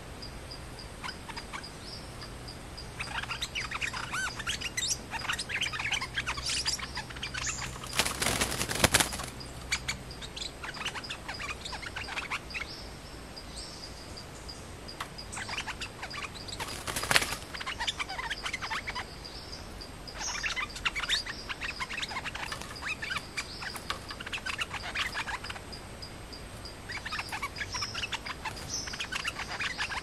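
Bulbuls chirping in about five bouts of quick, high calls, a wild bird facing a caged decoy during a territorial face-off. Two loud brief rustling noises come about eight and seventeen seconds in.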